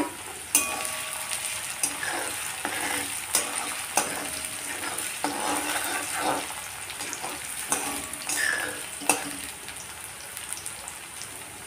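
Finely chopped garlic, ginger and green chilli sizzling in hot oil in a metal kadhai as they are sautéed, with a metal spatula stirring and clinking sharply against the pan every second or two.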